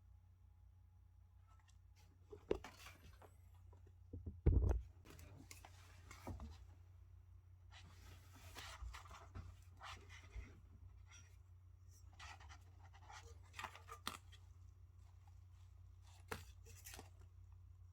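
Unboxing handling noises: packaging rustling and scraping with light clicks and taps, and one louder knock about four and a half seconds in, over a low steady hum.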